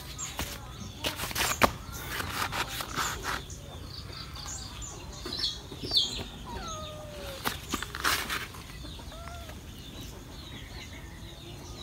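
Chickens clucking now and then, with small birds chirping, over a few sharp clicks and rustles about a second or two in and again about eight seconds in.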